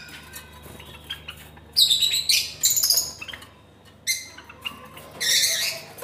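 Caged Java sparrows and lovebirds calling in a shared aviary: clusters of short, high, sharp chirps about two seconds in, again around four seconds, and a louder burst near the end, with quiet between.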